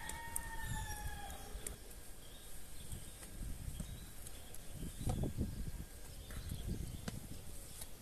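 A rooster crowing, its long held final note fading out about a second in. After that there is an irregular low rumble, loudest about five seconds in, with faint high chirps.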